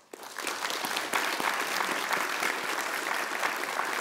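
Audience applauding: many hands clapping together, starting right at the beginning and building to a steady level within about half a second.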